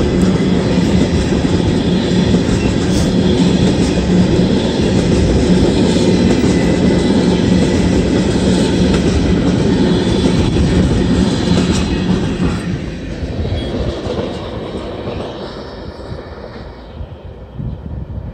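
Freight train of tank cars rolling past close by, a loud, steady noise of steel wheels on rail. About twelve seconds in the sound starts to fade away as the end of the train moves off.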